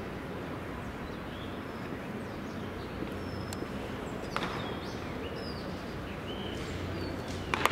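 Open-air ballpark ambience: a steady low murmur with scattered faint, short bird chirps. Near the end, a sharp double crack of a baseball impact stands out as the loudest sound.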